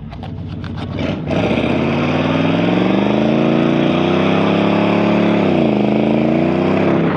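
A 1970 Chevrolet C10's 350 small-block V8 accelerating hard under a heavy throttle. Its note climbs, dips briefly near the end as at a gear change, then climbs again.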